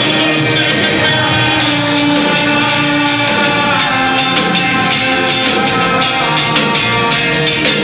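Live band music from a concert performance, loud and steady throughout.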